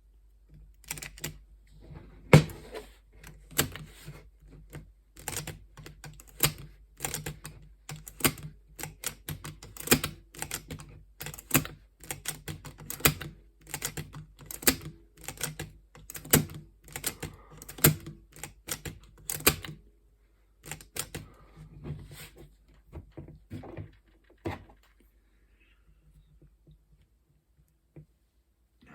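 Irregular sharp clicks and light knocks, one to three a second, from the small metal parts of a floppy drive mechanism being handled and worked during cleaning. They stop about 25 seconds in.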